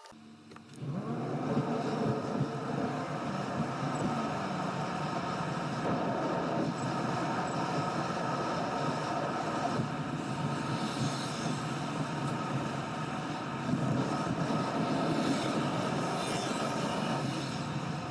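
Car driving sound heard from inside the cabin: steady road and engine noise with a few held tones, cutting in suddenly about a second in.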